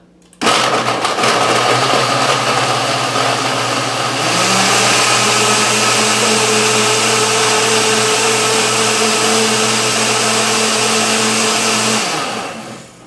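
Countertop blender running, blending frozen peach slices, raspberries, banana and orange juice into a smoothie. It starts suddenly, steps up to a higher, louder speed about four seconds in, and is switched off and winds down near the end.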